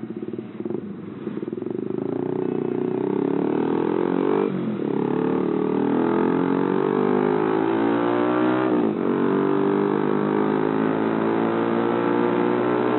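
Yamaha R15 V3's single-cylinder engine accelerating through traffic, its pitch climbing, dropping at a gear change about four and a half seconds in and again about nine seconds in, then climbing once more.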